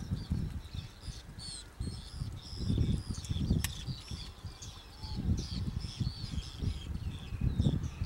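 A flock of whiskered terns calling, with many short, overlapping calls throughout. Under them runs a low, uneven rumble that comes and goes, and there is a single sharp click a little before halfway.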